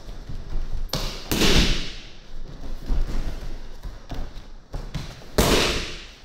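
Aikido partner being thrown with a jo staff and taking breakfalls on tatami mats: dull thuds of bodies hitting the mat, with a loud rush of gi and hakama cloth twice, about a second in and again near the end.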